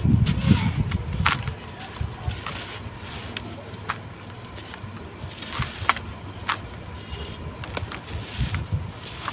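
Dry sand-cement blocks crumbling and crunching: scattered gritty crackles, with dull thuds in the first second and again near the end.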